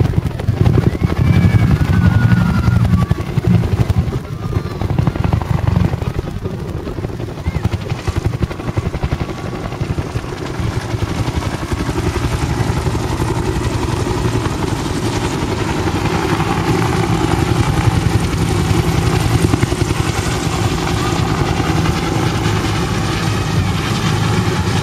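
Bell UH-1 Huey-type two-bladed helicopter flying overhead, its rotor beating rapidly and steadily. The sound is loudest at first, fades a few seconds in, then grows louder again as it comes back around.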